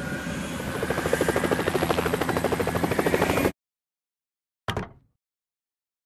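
Cartoon helicopter sound effect: a rapid, even rotor chop that grows louder as the firefighting helicopter lifts off, then cuts off suddenly. A single short sound follows about a second later.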